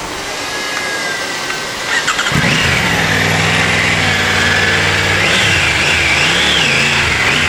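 Motorcycle engine cranked and starting about two seconds in, then running with a few rises and falls in revs.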